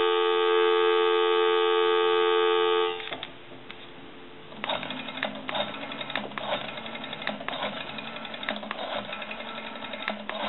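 Telephone line dial tone, a steady two-note hum, for the first three seconds or so, then it cuts off. After a short pause, a run of irregular clicks and line noise comes in as a number is dialed on the brass elephant telephone.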